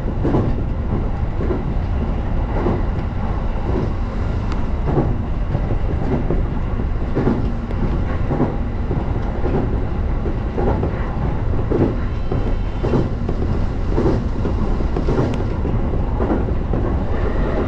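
Electric commuter train running between stations, heard from inside the car: a steady rumble of wheels on the rails with clickety-clack knocks, about one or two a second, as the wheels pass over rail joints.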